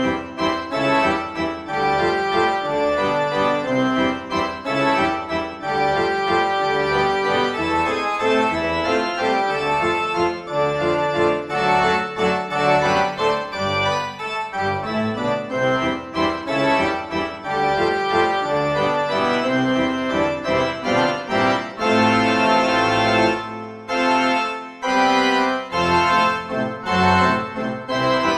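Background instrumental music, a continuous tune of sustained notes.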